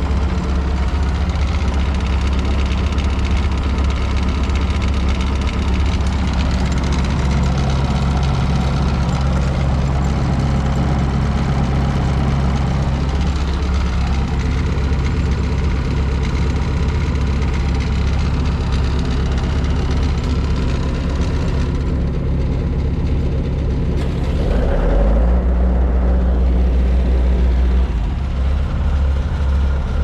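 2006 Bobcat S205 skid steer's diesel engine running steadily, heard from inside the cab. About 25 seconds in, the note changes and a deeper, louder hum sets in for a few seconds before easing near the end.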